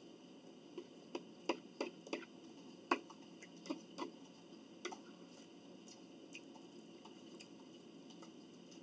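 Eating sounds at the table: a run of irregular sharp clicks and smacks of mouths and utensils, thickest in the first few seconds and sparser after, over a faint steady room hiss.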